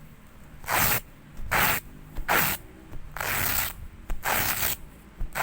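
Velcro (hook-and-loop) tape pulled apart in a series of short, rasping rips, about one a second, each tear lasting under a second.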